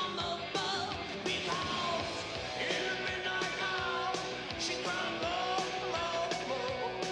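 Background rock music with a sung vocal line and a steady beat.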